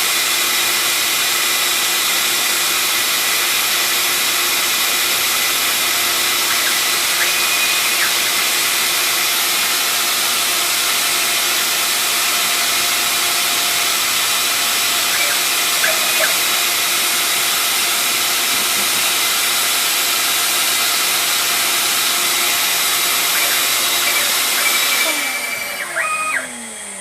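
A dust vacuum and a China 6040 CNC router's spindle running together, a loud steady rush with a steady whine, while the router drills pine. Near the end the noise drops away and a falling whine winds down.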